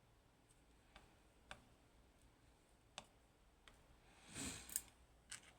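Faint, scattered clicks of small metal lock parts being handled and set down, with a brief scrape and a sharper click about four and a half seconds in.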